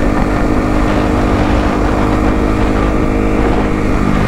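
Yamaha WR450F single-cylinder four-stroke dirt bike engine running at a steady pitch while riding.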